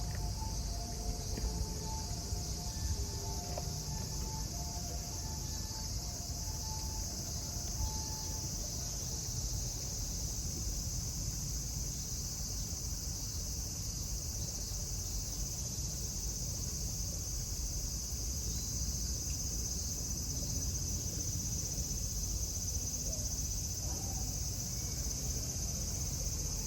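Insects droning in a steady, high, continuous buzz, over a low rumble.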